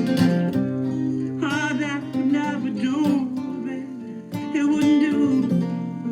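Acoustic guitar music: an instrumental break in a country-folk song, with strummed chords under a lead melody line that wavers in pitch.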